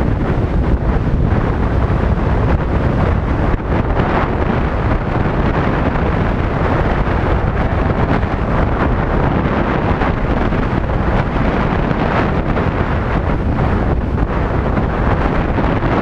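Wind buffeting the microphone of a camera on a moving Yamaha Tricity scooter: a loud, steady rush heaviest in the low end, with the scooter's running noise mixed in.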